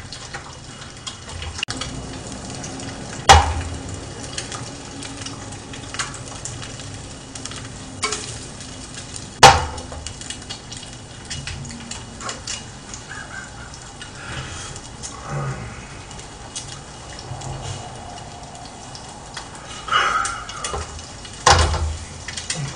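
Cookware clatter as a utensil knocks against frying pans: two sharp knocks about three and nine seconds in and a few more near the end, over the faint sizzle of eggs frying in oil.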